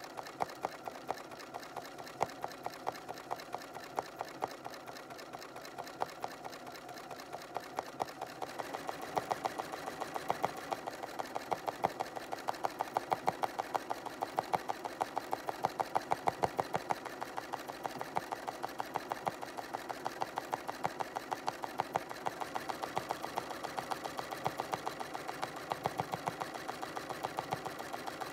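Bernina 590 sewing machine stitching free-motion embroidery, the needle running at a fast, even rate of rapid clicks; it gets a little louder about nine seconds in.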